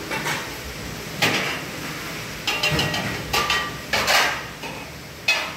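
Metal utensil clinking and scraping against a pan of cooked shrimp: a handful of separate sharp knocks, some ringing briefly.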